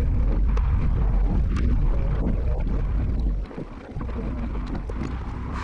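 Portable bandsaw mill (Norwood Lumberlite ML26) running at close range: a low engine rumble with scattered knocks and rattles. The sound dips sharply a little past halfway, then comes back a little quieter and steadier.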